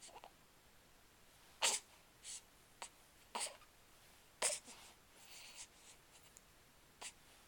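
A person hiccuping repeatedly: short, sharp catches about a second or two apart, the loudest about halfway through, with fainter clicks in between and near the end.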